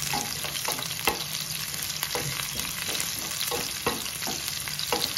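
Tempering of onion, garlic, dried red chillies and seeds sizzling in hot oil in a non-stick pan, stirred with a spatula that taps and scrapes against the pan now and then.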